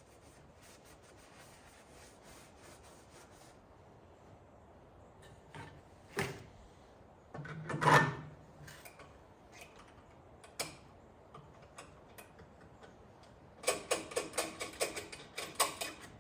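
Scattered clicks and knocks, a single louder clunk about halfway through, then near the end about two seconds of rapid mechanical clattering at four to five strokes a second: the Miller Bobcat 250 welder's gas engine being cranked over without firing after its carburetor was primed.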